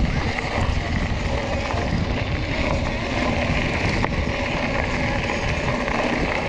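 Mountain bike rolling fast downhill on a gravel track: a steady rushing rumble of wind on the microphone and tyres on loose stones, with small rattles and knocks from the bike.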